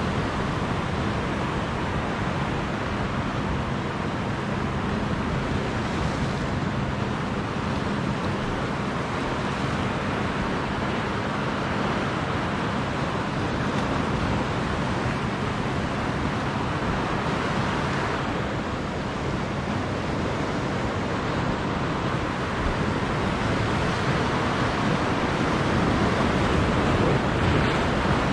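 Ocean surf breaking against a rocky shoreline and washing back, a steady rush of water that swells a few times.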